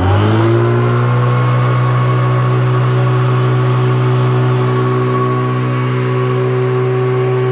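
Hoover commercial upright vacuum cleaner running, its motor winding up to full speed in the first moment and then holding a steady hum with a higher whine.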